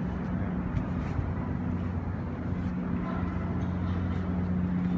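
Steady low mechanical hum of running machinery, a drone that grows a little stronger about halfway through.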